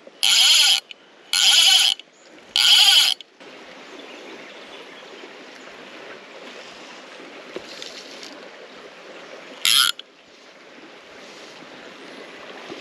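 VR Design Trutta Perfetta 3" fly reel buzzing as line is pulled off it in three quick strips of about half a second each, then one more short buzz near ten seconds in. Between them a shallow creek runs with a steady rush.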